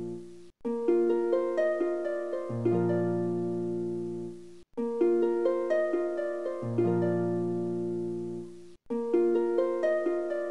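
Background music: a short plucked-string melody over long low bass notes, looping about every four seconds with a brief cut-out before each repeat.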